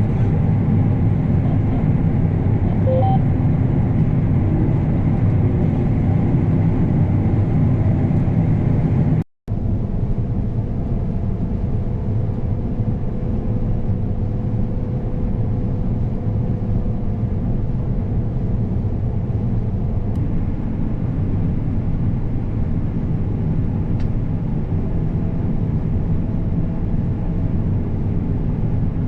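A combine harvester's engine and threshing machinery running steadily with a low rumble. It drops out briefly about nine seconds in, then carries on with a faint steady hum.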